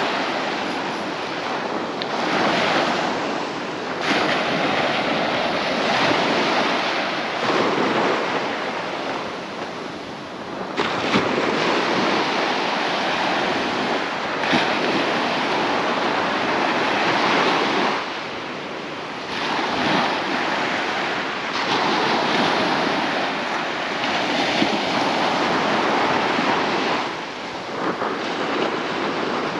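Small sea waves breaking and washing up a sandy shore, the surf rising and falling every few seconds as each wave comes in.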